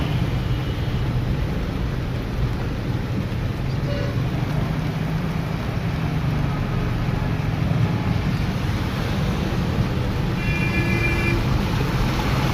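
Steady car-cabin rumble from driving through heavy rain on a flooded road: engine and tyre noise with the hiss of rain and water spray, heard from inside the car.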